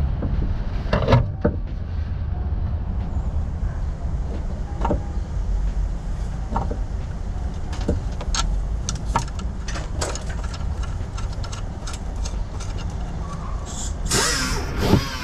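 A steady low rumble under scattered light clicks and taps as hands work at the rear strut top mount inside the car, with a brief scraping rustle near the end.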